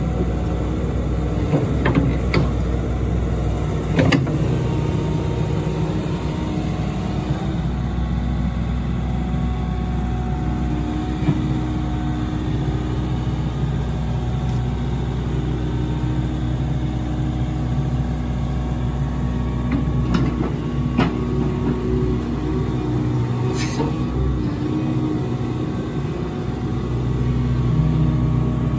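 Kobelco SK75SR-3E 7.5-tonne excavator's diesel engine running steadily while its hydraulics move the boom and bucket, with a few sharp knocks along the way.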